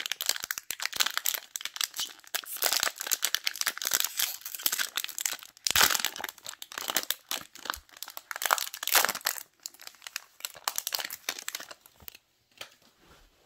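Plastic wrapper of a Topps baseball-card fat pack being torn open and crinkled by hand, a dense crackling that stops about twelve seconds in.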